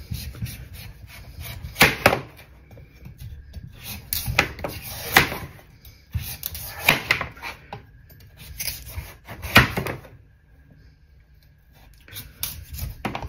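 Kitchen knife slicing the skin off a butternut squash: a series of irregular scraping cuts through the tough rind, with a pause of about two seconds near the end.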